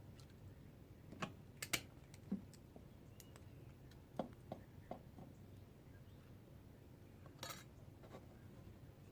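Faint, scattered small metal clicks and taps, a few close together and then spread out, from small hand tools cutting and handling little pieces of silver and silver solder.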